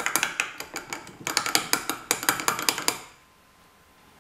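Metal teaspoon clinking rapidly against the sides of a glass tumbler as a drink is stirred, stopping about three seconds in.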